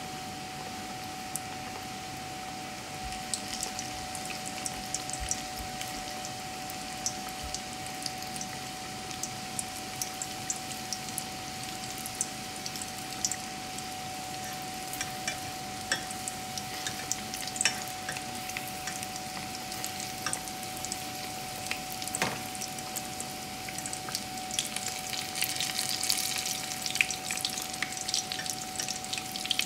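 Breaded pork-and-cheese cutlets deep-frying in a pot of hot oil: a steady sizzle dotted with crackles and pops, getting busier near the end. A faint steady tone runs underneath.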